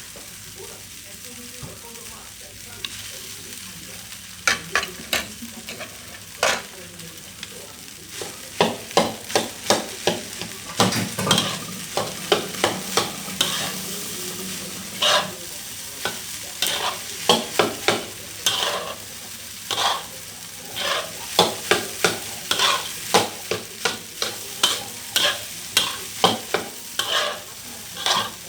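Fried rice being stir-fried in a pan: a steady sizzle with a spatula scraping and knocking against the pan, the strokes starting a few seconds in and becoming quick and regular, about two or three a second.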